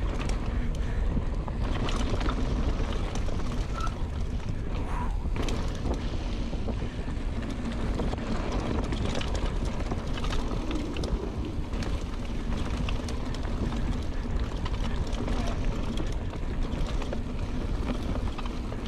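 Mountain bike running fast down a dirt flow trail: wind buffeting the microphone, with tyre roar on the dirt and frequent ticks and rattles from the bike over bumps.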